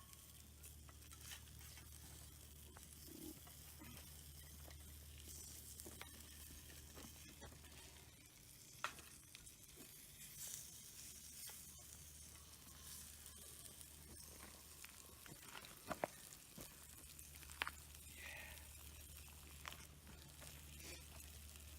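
Faint sizzling of food frying in a pan, with a few sharp clicks and taps, the loudest about 9 and 16 seconds in.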